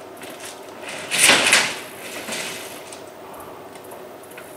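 Roofing being pried and pulled loose on an old wooden shack: one loud scraping clatter, about half a second long, a second in, with quieter scraping and rustling around it.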